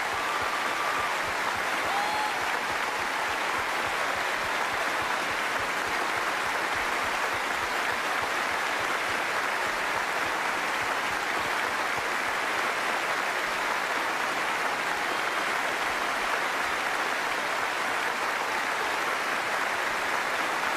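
Steady, sustained applause from a large theatre audience.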